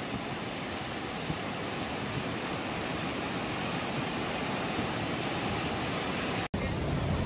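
Fast-flowing floodwater rushing, a steady even noise. Near the end the sound cuts out for an instant and a lower, heavier rushing noise follows.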